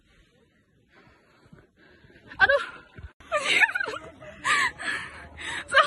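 A high-pitched voice, its pitch sweeping up and down in short phrases, starting about two seconds in after a nearly quiet opening.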